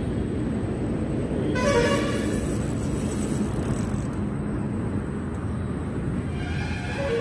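Steady low background rumble, with a vehicle horn sounding briefly about one and a half seconds in and again, more faintly, near the end.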